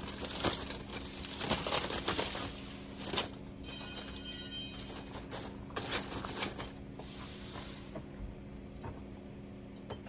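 Scattered rustling and clicking handling noises, busiest in the first three seconds and quieter after about seven, over a steady low hum. A brief high chirping tone comes about four seconds in.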